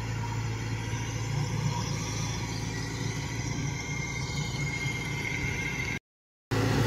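Crawler rice combine harvester engine running steadily as the machine travels across the field. The sound cuts out for about half a second near the end, then returns louder.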